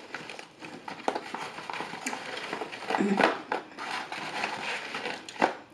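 Close-up chewing of fried chicken fingers dipped in sauce, with wet mouth clicks and smacks, and a short hum about three seconds in.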